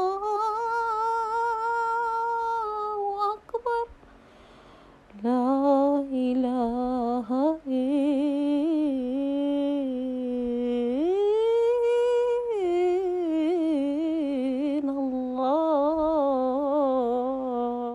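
A woman humming a slow, wordless melody in long held notes with a slight waver. It breaks off briefly about four seconds in, and rises to a higher held note past the middle before settling back down.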